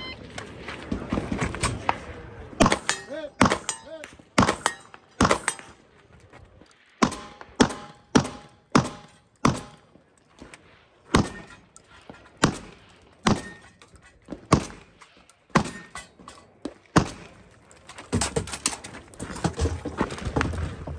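A shot timer beeps once, then handgun shots follow in a long string of singles and quick pairs with short pauses, as a competitor shoots a 3-gun stage.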